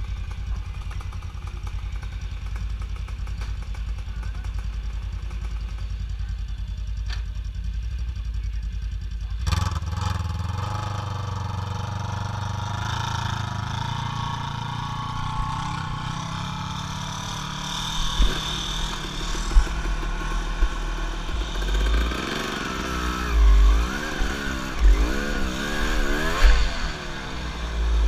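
A small off-road engine runs steadily at low revs, then pulls away about nine seconds in and climbs a rocky trail. Its revs rise and fall with the throttle, and in the last few seconds irregular thumps come from the rough ground.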